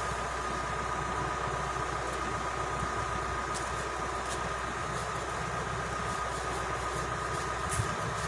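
A small engine running steadily at idle, with a low hum and a steady higher whine.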